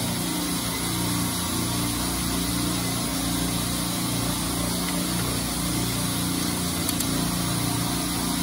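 Steady drone of running machinery: a low hum with several steady tones over a haze of noise, with a faint click about seven seconds in.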